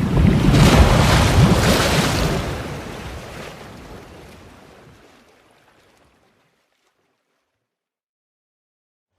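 A sea wave breaking and washing up, a loud rush that peaks in the first two seconds, then fades away over several seconds into silence.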